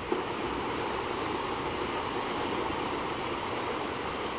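Turbulent river water churning and rushing steadily in swirling boils below a dam, driven by water released through the dam's turbines. A brief knock sounds just after the start.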